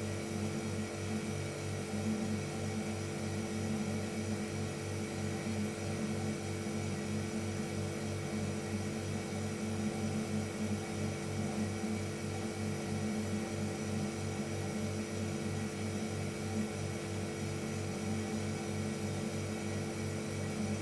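Refrigerator compressor motor running with a steady hum, an even low drone with a faint rapid pulse in it.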